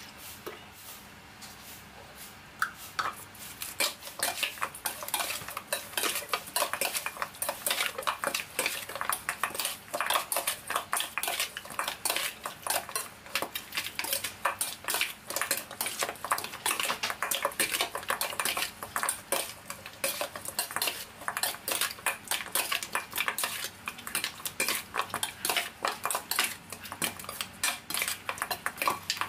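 Metal spoon clinking and scraping against a stainless steel mixing bowl as marinated pork rib pieces are tossed and turned, in quick, irregular clicks that begin about three seconds in.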